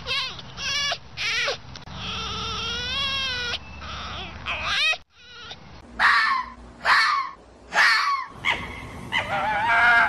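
Red fox calling: a few short high yelps, then a long wavering whine, then a run of loud, harsh screams about a second apart, with a jumble of calls near the end.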